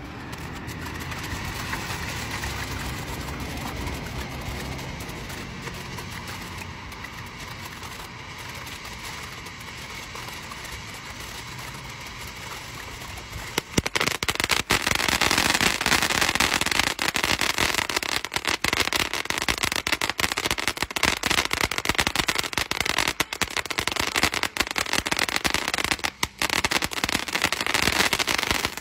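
Consumer firework fountain (TNT 'Fin') burning: a quieter steady hiss at first, then about halfway through it suddenly gets much louder, spraying with dense, rapid crackling from its crackling stars.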